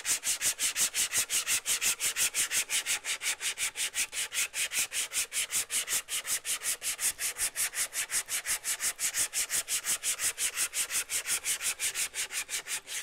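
A strip of 80-grit sandpaper drawn quickly back and forth around the back of a wooden guitar neck, smoothing the carved neck contour: an even run of sanding strokes, about four or five a second. The strokes stop just before the end.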